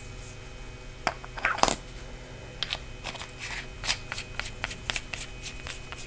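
A LITESAM PS11 LED flashlight being put back together by hand: the 18650 cell going into the body and the threaded metal parts being screwed together. It comes across as a scatter of short clicks and scrapes, the loudest about a second and a half in.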